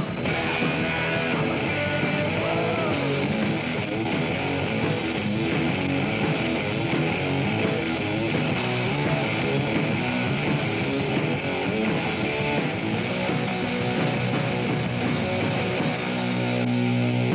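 Rock music with guitar, dense and steady, with a held low chord near the end.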